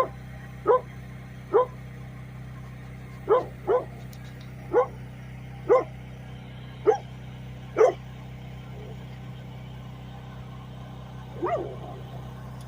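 A dog barking repeatedly, single short barks about a second apart, then a pause of a few seconds before one more bark near the end. A steady low hum runs underneath.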